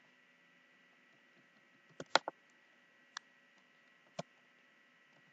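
A few sharp computer keyboard keystroke clicks: a quick group of three about two seconds in, then single clicks about a second and two seconds later, over a faint steady hum.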